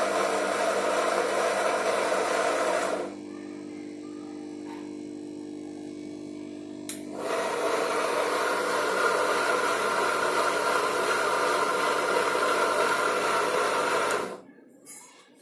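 Front-load washing machine's universal motor spinning the drum at a steady whir on a spin cycle. About three seconds in it drops to a quieter steady hum, picks up again about seven seconds in, and dies away near the end.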